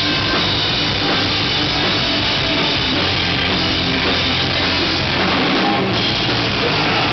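A live rock band playing loud, with electric guitars over a drum kit.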